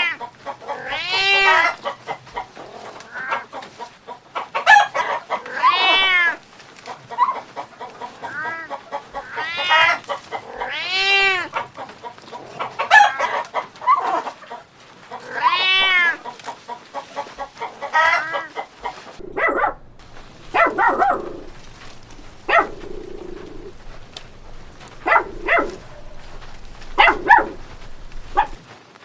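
Chickens calling and clucking: loud arched squawks every few seconds, then a run of shorter, choppier calls in the last third.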